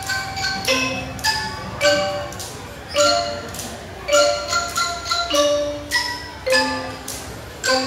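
A children's drum band playing a slow melody on mallet keyboard percussion. Each struck note rings and fades, and louder strokes land about every second and a bit.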